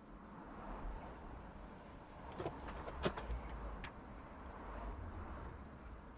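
Small clicks and taps as a kit circuit board and its connector parts are handled on a wooden bench, the sharpest click about three seconds in, over a faint low rumble and hiss that swells and fades.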